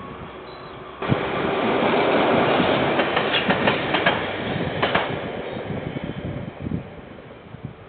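Train passing close by, coming in suddenly about a second in: a loud rushing noise with a quick run of wheel clacks over the rail joints in the middle, then dying away.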